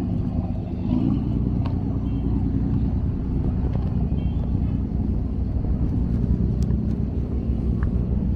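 An engine running steadily, a low even hum, with a few faint clicks.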